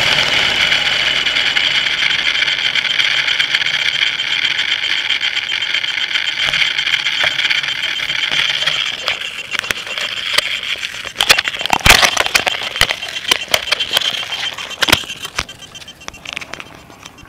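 A radio-controlled helicopter just after landing: a steady high whine fades away over the first nine seconds or so, then a run of sharp clicks and knocks comes between about ten and sixteen seconds in.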